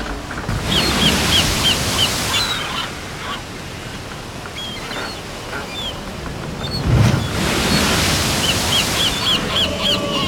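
Ocean waves washing in swells, rising about half a second in and again around seven seconds, with quick runs of short high chirps over the top.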